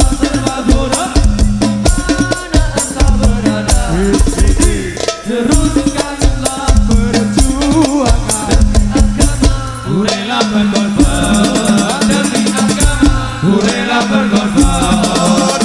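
Instrumental break in a sholawat song: dense hand percussion and heavy bass beats under a bending lead melody, with no singing.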